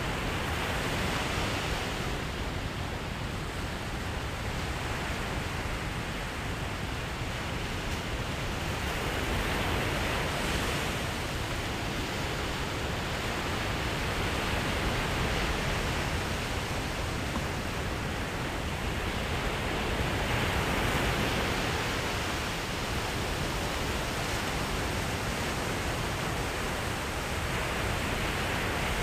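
Ocean surf breaking on a sandy beach: a steady rush that swells and eases every several seconds as the waves come in.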